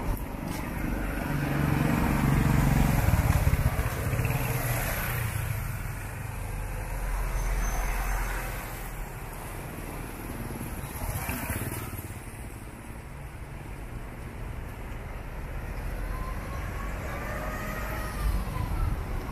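Street traffic: cars and motorcycles passing on a town street, with several vehicles going by in turn. The loudest, a nearby engine, is about three seconds in.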